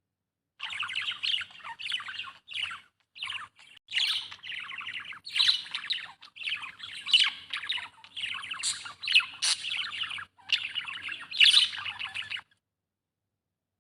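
Budgerigar chattering and warbling: a fast, continuous run of chirps and squeaky notes broken by short pauses, stopping abruptly near the end.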